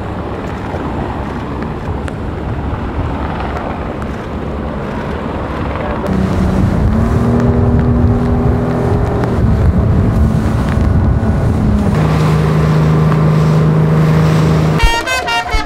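Wind and rushing, crashing water as a racing yacht drives through heavy breaking seas. From about six seconds in, a steady low drone joins it and shifts pitch a few times.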